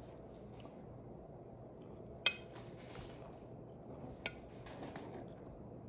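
Cats pawing and moving around a cardboard box on a wooden floor, heard as faint rustling, with two sharp clinks about two and four seconds in.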